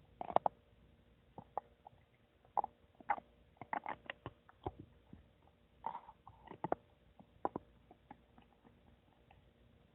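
Human stomach gurgling: irregular short pops and bubbling squelches, clustered most thickly in the middle, with a louder burst right at the start.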